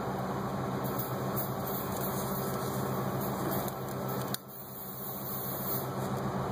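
Steady low mechanical hum with a constant hiss. It drops off suddenly a little past four seconds in, then builds back up.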